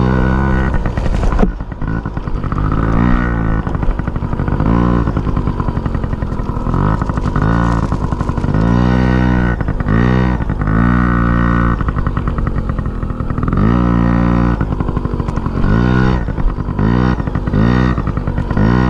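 An engine revving up and down over and over, about once every second or so, over a steady low rumble.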